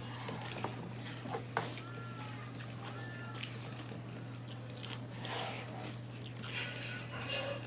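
Eating sounds: scattered light clicks and taps on a plate with soft scraping, over a steady low hum. A few brief faint chirping calls come about two and three seconds in.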